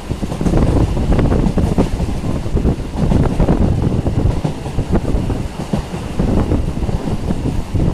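Electric multiple-unit local train running at speed: a loud, steady rumble with a continual rattle and knocking of wheels and carriage.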